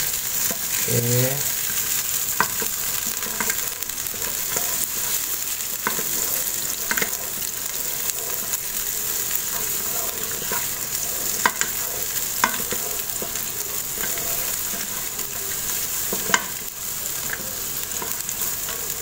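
Sliced onions, cinnamon sticks, star anise and raisins sizzling in hot oil in an electric rice cooker pot, sautéing until the onions soften. A wooden spatula stirs them and now and then knocks against the pot in sharp clicks.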